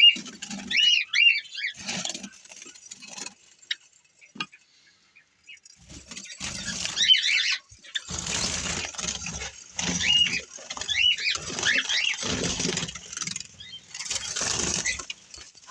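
White Java sparrows chirping in short, repeated calls, in clusters near the start, about seven seconds in and around ten to eleven seconds in, over bursts of rustling noise.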